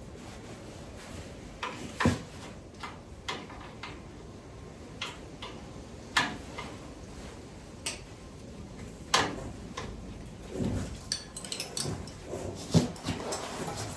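Scattered sharp clicks and clanks of hand tools and metal brake-line parts being handled, irregular at first and coming more often near the end.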